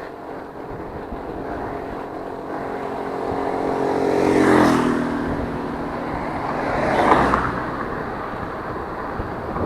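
Motor vehicles passing close by on a highway: the first one's engine note swells and drops in pitch as it goes past about four and a half seconds in, and a second vehicle passes around seven seconds in. Steady road and air noise runs underneath.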